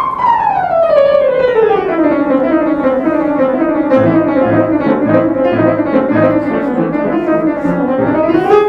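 Yamaha CFX concert grand piano played very fast: a rapid run falls about two octaves, turns into quick repeated figures in the middle register with pulsing bass notes from about halfway, and climbs again near the end.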